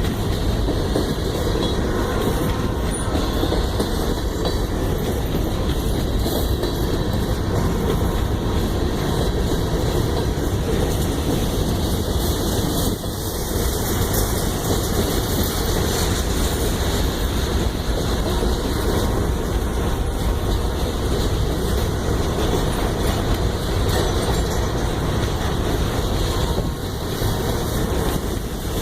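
Train passing, its rail cars rolling by steadily with no break.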